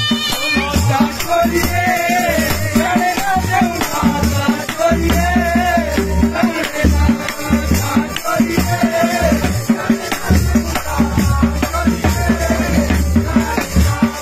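Pahari folk nati music: a large rope-tensioned dhol beaten with stick and hand in a fast, steady rhythm, with rattling hand percussion and a wavering melody line carried over the beat.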